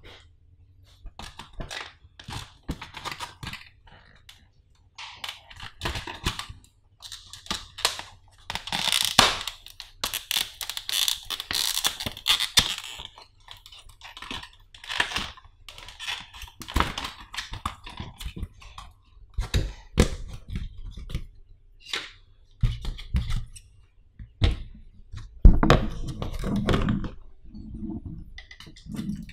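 Clear plastic blister pack crackling, crinkling and clicking as it is pried apart by hand, with a dense stretch of crinkling about eight seconds in. In the last few seconds there are several low knocks as the caddy and packaging are handled.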